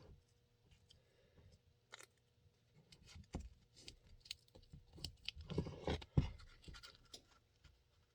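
Faint scraping and clicking of a Kydex plastic sheet being cut and handled, with a louder cluster of scrapes and a knock about six seconds in.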